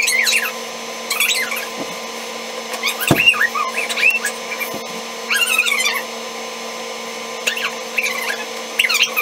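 A spatula stirring thick, sticky slime in a plastic bowl, squeaking and squelching in short spells every second or two. A steady hum runs underneath.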